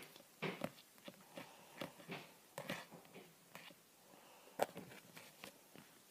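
A kitten's paw tapping and scratching at a book on a table: faint, irregular soft taps and scrapes, with one sharper tap about four and a half seconds in.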